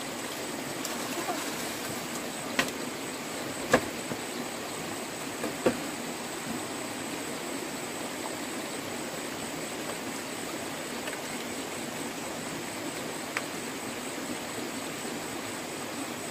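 A few sharp knocks of a woven bamboo door panel being moved into place, the loudest about four seconds in, over a steady rushing background.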